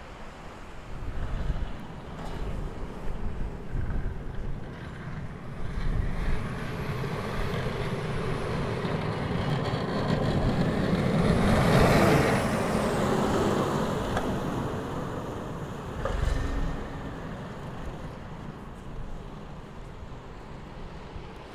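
A road vehicle passing close by on a snowy street, its engine and tyre noise growing louder to a peak about halfway through, then fading away.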